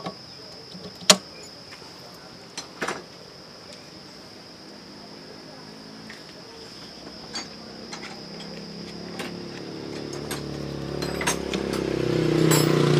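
A few sharp metal clicks and knocks, the loudest about a second in. Then a motorcycle engine grows steadily louder over the last few seconds and peaks at the end. A thin steady high-pitched tone runs throughout.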